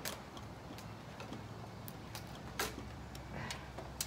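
A few scattered light clicks and knocks from handling a cordless drill and wooden trellis pieces, the loudest a little past halfway and a sharp one near the end, over a steady low background hum. The drill motor does not run.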